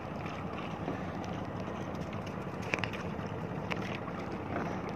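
Fishing net being hauled in over the side of a small wooden boat: a steady wash of water running and dripping off the net, with a few light knocks.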